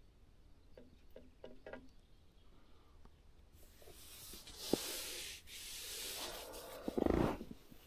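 Rubbing and rustling noise with a few faint clicks, growing louder about halfway through, with a sharp click and a low thump near the end.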